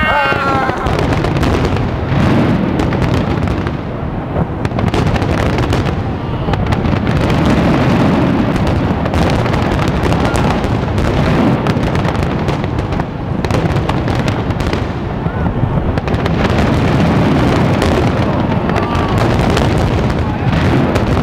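Finale of a large professional fireworks display: a dense, unbroken barrage of aerial shell bursts and crackle.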